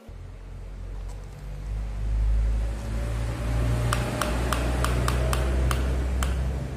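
A steady low rumble throughout, with a run of about eight sharp plastic clicks in the second half as the toy excavator's arm is worked by hand.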